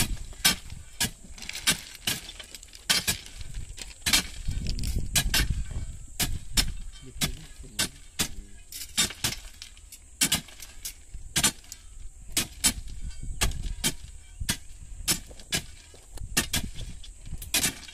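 Steel beaters and crowbars striking and ramming ballast stones as trackmen hand-pack ballast under concrete railway sleepers. The sound is repeated sharp metallic clinks and stone crunches from several workers at irregular intervals, about one or two a second.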